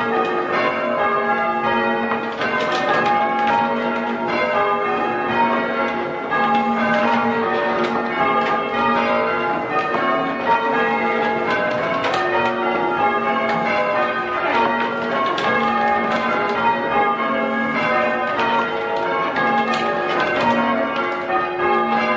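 A ring of six church bells in A-flat, tenor 9-3-12 cwt, being rung full circle in change ringing: a steady, unbroken stream of bell strokes at a handful of repeating pitches, each stroke ringing on into the next.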